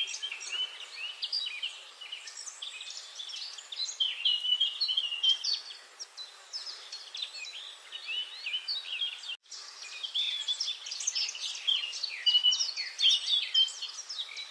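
Many small birds chirping at once: a dense, overlapping chorus of short high chirps and trills. The sound drops out for an instant about nine seconds in, then the chorus carries on.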